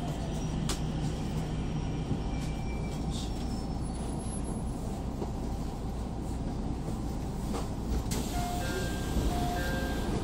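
Steady low rumble and hum inside the cabin of a JR Central 313 series electric train as it stands at or draws into a station. A few short electronic beeping tones sound near the end.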